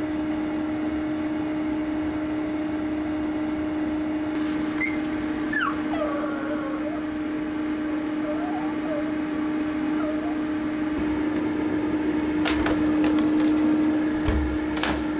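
A dog whimpering in a few short, falling cries over a steady electric hum, with a couple of sharp clicks near the end.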